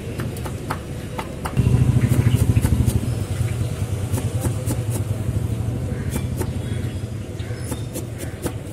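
Knife chopping green chillies and coriander on a wooden board in an aluminium bowl: quick, irregular sharp taps. Under them runs a low, pulsing engine rumble that swells about a second and a half in and then slowly fades.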